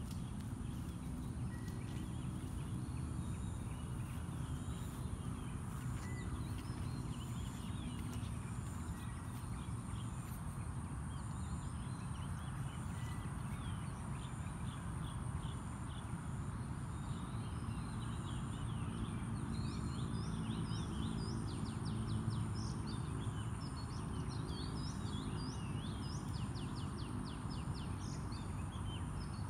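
Outdoor ambience of birds chirping and calling over a steady low rumble and a constant thin high-pitched hiss. The bird calls grow busier about two-thirds of the way through, with fast repeated trills.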